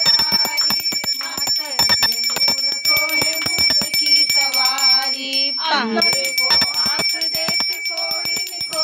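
Small brass puja hand bell rung rapidly and continuously during an aarti, with voices singing the aarti over it.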